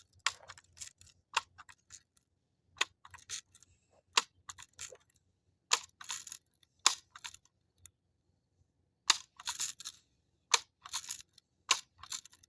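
Ruger NXG multi-pump air rifle being pumped up: a series of short plastic-and-metal clicks and clacks as the pump lever is swung open and closed, repeated at an uneven pace.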